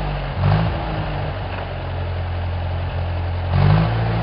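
Tractor engine idling with a steady low note, revved up briefly twice: once about half a second in and again near the end.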